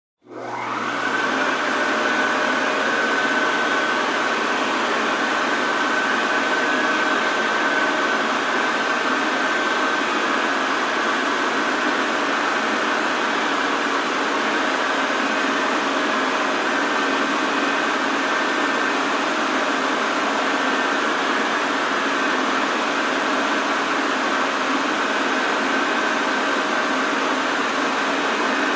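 Washing machine running with a steady whirring noise and a faint steady tone or two on top. It comes in abruptly at the very beginning and holds level.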